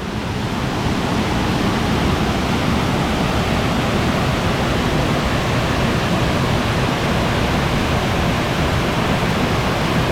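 Steady, loud rush of a waterfall, water pouring over rocks, swelling in over about the first second.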